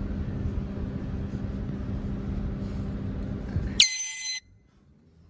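A steady low engine rumble, then near the end one short, loud, high-pitched blast of a handheld air horn that cuts off abruptly after about half a second.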